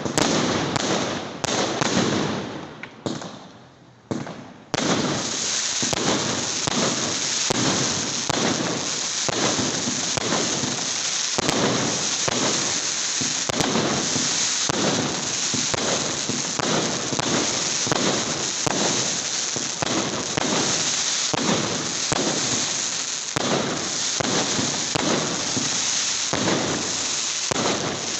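Fireworks going off: a few loud bangs, a short lull, then from about five seconds in a continuous rapid barrage of bangs and crackling.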